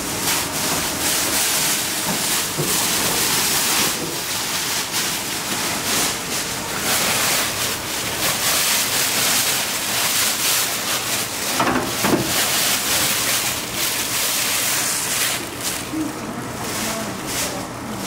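Large plastic bag rustling and crinkling while crumbly ramen dough is shaken out of it into a metal tray. The rustling is loud and continuous, then eases near the end as hands spread the dough crumbs.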